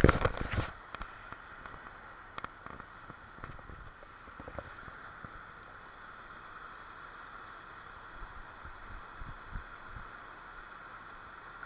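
Steady rush of a shallow, rocky mountain stream, with a burst of loud knocks and rubbing at the very start as a hand handles the camera, and a few faint clicks later on.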